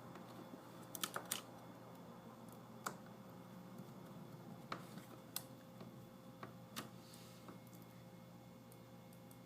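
Scattered small clicks and taps of hand work on a laptop's screen assembly while its small screws are being dropped back in, with a quick cluster about a second in and single clicks every second or two after.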